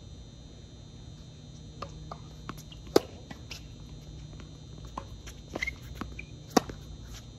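Tennis rally on a hard court: sharp pops of rackets striking the ball, the two loudest about three and a half seconds apart, with fainter ball bounces and footsteps between. A steady low hum runs underneath.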